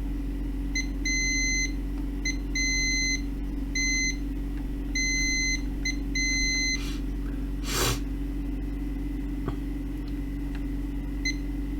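Multimeter continuity beeper sounding in about eight irregular beeps of one high pitch, some short and some held for over half a second, as the probes find connected points among the amplifier's output transistor legs. A brief rustle comes about eight seconds in, over a steady low electrical hum.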